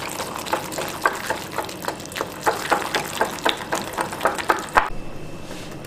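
Wire whisk beating smooth rice-flour and besan dosa batter in a glass bowl: quick, irregular clicks of the whisk against the bowl, about four or five a second, stopping shortly before the end.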